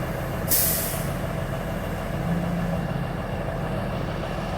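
Heavy diesel engine idling steadily, with a short hiss of air about half a second in.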